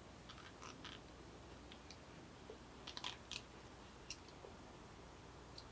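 Near silence with a few faint, scattered clicks of a hand-held abrasive blaster gun and its hose being handled: some around half a second in, a small cluster about three seconds in, and one more a second later.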